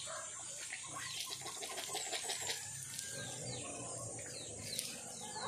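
Birds chirping: repeated short, high calls that fall in pitch. About one to three seconds in there is also a quick run of clicks.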